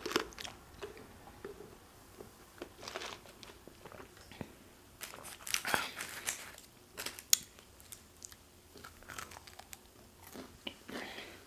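Close-miked chewing and biting of fast food, with scattered soft crunches and mouth clicks.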